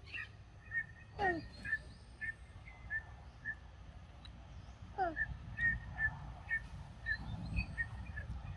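A bird calling a short repeated note at the same pitch, about two a second, with two falling calls about a second in and again about five seconds in.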